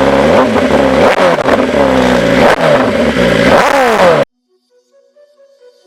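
BMW superbike engine revved repeatedly, about four throttle blips with the pitch sweeping up each time, very loud. It cuts off suddenly about four seconds in, and faint music follows.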